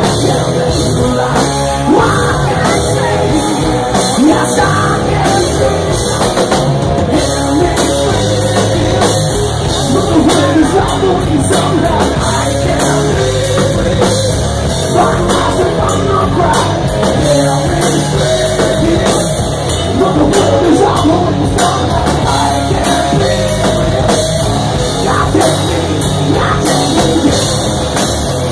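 Live heavy rock band playing loud: drum kit, electric guitar and a singer at the microphone.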